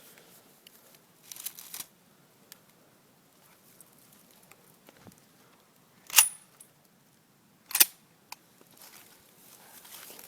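Two sharp clicks about a second and a half apart, with faint rustling before them.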